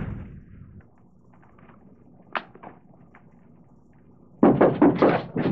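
Quiet room tone with one short click about two and a half seconds in and a few fainter ticks; a voice starts talking near the end.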